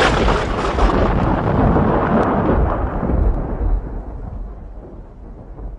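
Thunder sound effect: a long rolling rumble from a clap just before, fading away over about four seconds.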